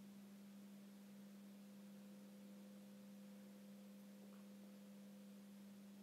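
Near silence with a steady low hum, one unchanging tone.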